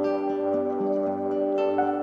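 Calm new-age background music: long held tones with soft notes entering every half second or so.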